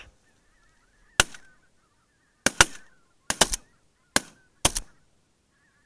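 Rapid volley of shotgun fire from several guns: about nine sharp shots in three and a half seconds, some in quick pairs and threes, starting about a second in. Faint goose honking runs underneath.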